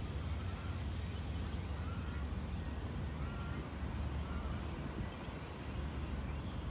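Steady low rumble of wind on the microphone, with a few faint short calls.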